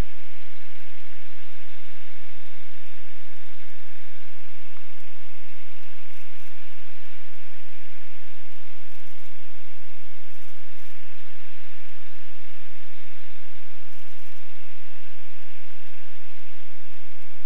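Steady cockpit noise of an SF-25 Falke motor glider in powered cruise flight: engine and propeller drone mixed with airflow hiss, loud and unchanging.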